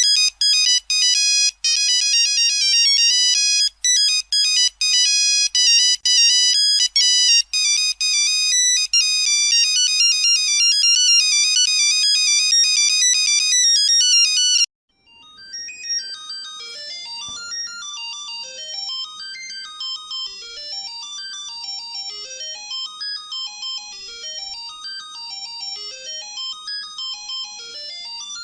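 Ringtones of a Nokia 3310 and a Siemens A35 mobile phone, played one after the other. The first, a loud bright melody of quick short notes, cuts off suddenly about 15 seconds in. After a brief gap a quieter ringtone follows, made of repeated fast runs of notes rising and falling in pitch.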